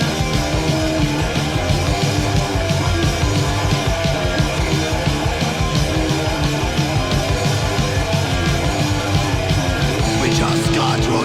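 Raw heavy metal demo recording playing: distorted electric guitar riffing over bass and fast drums, an instrumental passage with no vocals.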